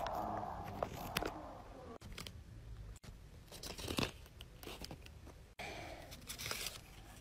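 Paper rustling and crinkling as hands handle and open a handmade paper parcel, with scattered sharp ticks and taps; the rustling is loudest at the start, about four seconds in and again near the end.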